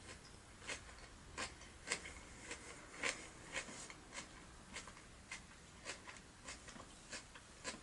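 A person chewing crunchy food close to the microphone: faint, crisp crunches at an even pace of a little under two a second.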